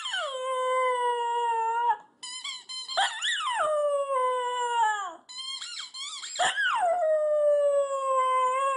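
Small white dog howling with a rubber toy dumbbell held in its mouth. There are three long howls, each sliding down in pitch, with short yips between them.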